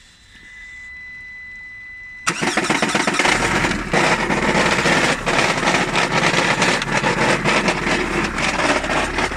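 A Lada Granta's engine is cranked and catches about two seconds in, after a faint steady high tone. It then runs with a loud, rapid, irregular knocking clatter, the sign of a flywheel whose bolts have worked loose and which has broken.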